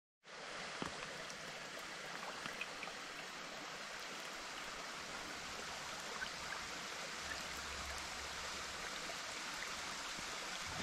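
Steady rush of a forest creek's running water, with a few faint scattered drips.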